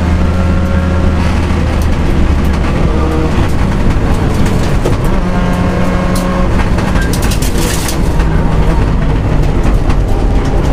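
Mitsubishi Lancer Evolution rally car's turbocharged four-cylinder engine running hard at stage pace, heard from inside the cabin, its pitch stepping up and down with gear changes. A burst of crackling noise comes about seven seconds in.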